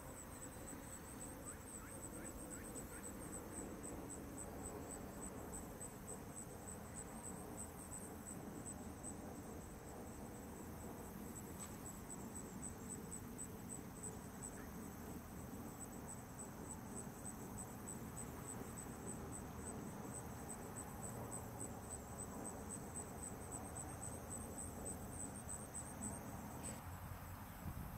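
An insect chirping: a high, evenly pulsed call that keeps a steady rhythm and stops shortly before the end, over a faint low outdoor hum.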